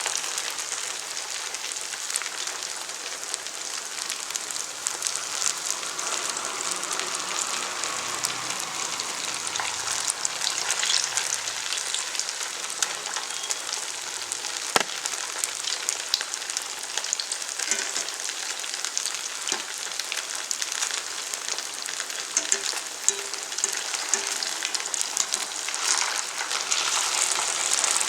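Sabudana vadas deep-frying in hot oil: a steady sizzle with fine crackling, and one sharp click about halfway through.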